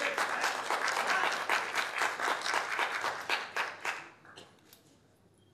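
Audience applauding, the clapping thinning out and dying away about four seconds in.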